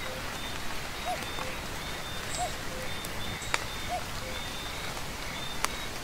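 Steady rainfall with a short rising-and-falling call repeating three times, about every one and a half seconds. Two sharp clicks stand out, one a little past halfway and one near the end.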